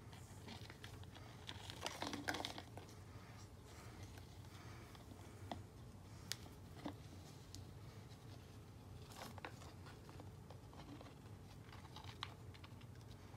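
Faint handling noises from gloved hands working a clear plastic cup and a long stick: scattered soft crinkles and a few small clicks over a low steady hum.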